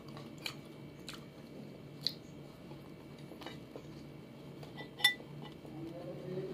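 Light scattered clicks of fingers and food against a ceramic plate while eating rice by hand, the sharpest one about five seconds in, over a faint steady low hum.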